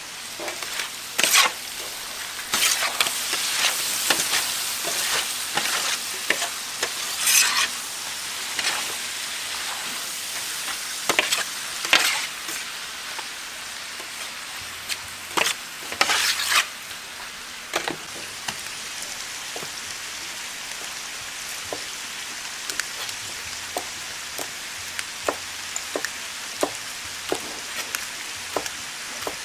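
Mixed pork offal frying on a large flat steel griddle: a steady sizzle broken by sharp knocks and a few louder scraping stretches as the pile is stirred. Near the end, a chef's knife chops on a wooden cutting board.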